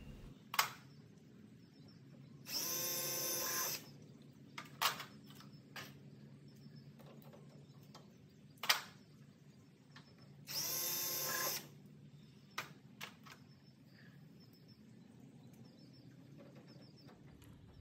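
Power drill with a number 40 bit drilling holes for a doubler plate in an aircraft wing: two short runs of about a second each, the motor whining at a steady pitch, with several sharp clicks in between.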